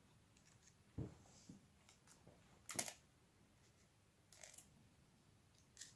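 Near silence broken by four faint, sharp clicks and knocks, spread out over the few seconds. These are metal washers and nuts being fitted by hand onto the cylinder-head studs of an RB25 engine.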